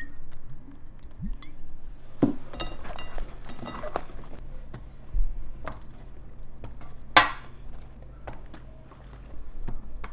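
Oil glugging from a glass bottle, then glass clinking as sliced eggplant is tossed in a glass bowl, with a single sharp knock about seven seconds in as the pieces are laid into a steel tray.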